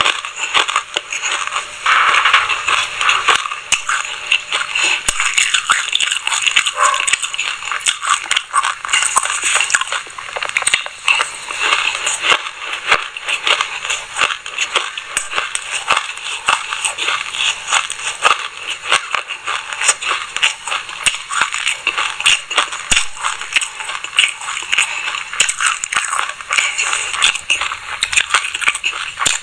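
Close-miked chewing of a mouthful of black sesame seeds: dense, continuous crunching and crackling.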